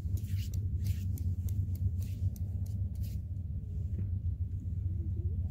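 Steady low rumble, with faint clicks and rustling in the first three seconds.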